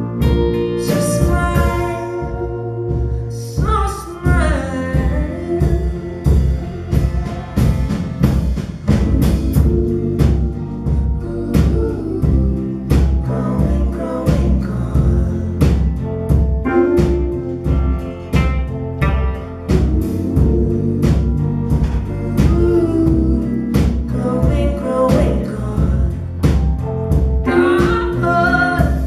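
Live band playing a song: electric guitar, bass and drums keeping a steady beat, with a man singing.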